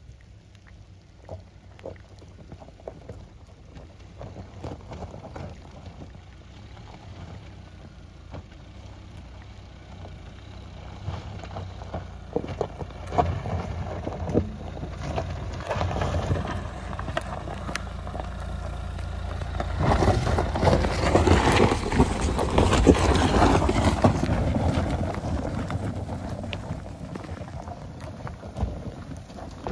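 Dacia Duster 1.5 dCi diesel 4x4 creeping down a steep, rocky track, its tyres crunching and clicking over loose stones. The engine and stone noise grow as it approaches, are loudest as it passes about twenty seconds in, then fade as it drives away.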